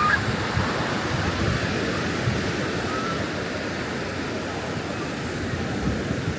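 Ocean surf breaking and washing up on a beach: a steady, even rush of waves.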